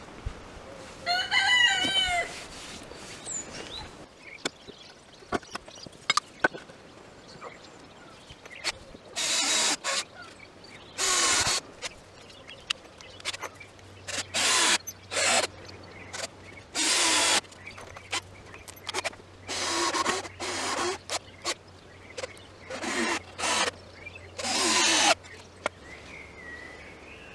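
Cordless drill/driver running in repeated short bursts, driving screws into the timber frame. A rooster crows once about a second in.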